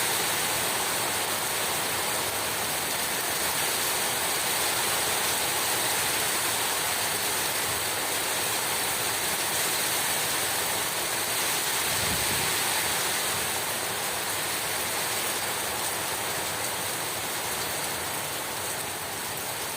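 Heavy rain pouring down in a steady, dense hiss, with a brief low rumble about twelve seconds in.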